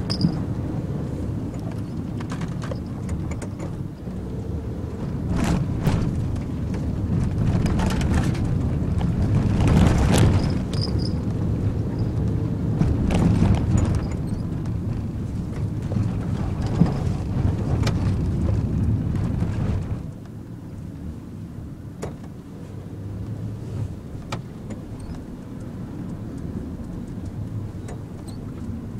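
Cabin noise of a Nissan NV200 van driving a narrow, winding hill road: a low engine and tyre rumble with scattered knocks and rattles. It turns noticeably quieter about two-thirds of the way through.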